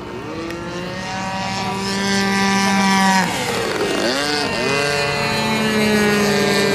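Radio-controlled model airplane's motor and propeller running at a steady high-pitched whine. It rises in pitch over the first second or so, dips sharply and climbs back about halfway through, then holds steady again.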